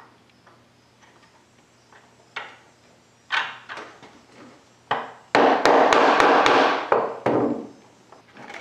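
Claw hammer tapping brad-tipped dowels set in a cast-iron bench vise, marking hole centres on the wooden rear jaw: a few scattered knocks, then a quick run of taps lasting about two seconds a little past the middle.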